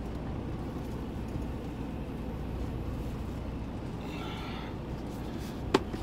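Semi-truck diesel engine running, heard from inside the cab as a steady low rumble. One sharp click near the end.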